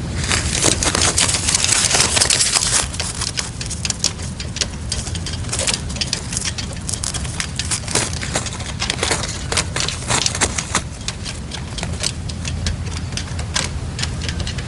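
Red-legged partridges calling: a run of sharp, clicking notes, dense for the first three seconds and then more scattered, over a steady low wind rumble on the microphone.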